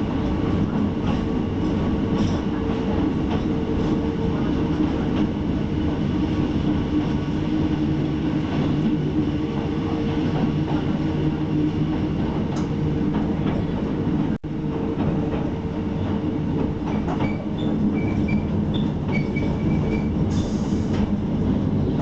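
Hakone Tozan Railway electric train running, heard from inside the passenger car: a steady rumble and hum from the motors and wheels, with scattered clicks from the rails. A few short high squeaks come from the wheels in the last few seconds.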